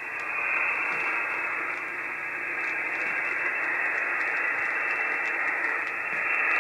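Steady static hiss from a home-built SoftRock Ensemble software-defined radio receiver tuned to the 40-metre amateur band, heard between voice transmissions. It swells up over the first half second, then holds steady.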